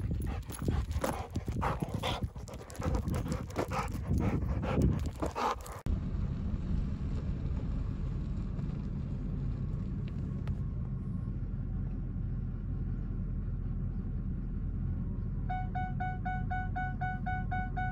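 Dog panting hard close to the microphone for about the first six seconds. Then the steady low rumble of the pickup driving, with a fast, evenly repeating chime starting near the end.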